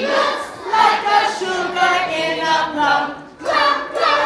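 A group of voices singing together, with long held notes that glide from one pitch to the next and a short break a little after three seconds in.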